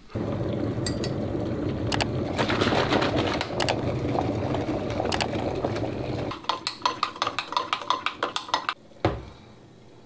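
Electric kettle coming to the boil with a steady rushing noise for about six seconds. Then comes a quick run of clinks from a spoon stirring in a coffee cup, and a single knock near the end.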